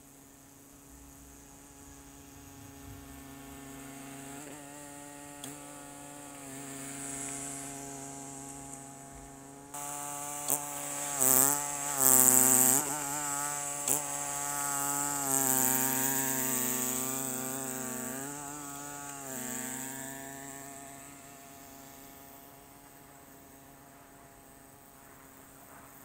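Snowblower's small engine running steadily. It grows louder as the machine comes close, is loudest in the middle with a rushing hiss and a few sharp spikes, then fades as it moves away.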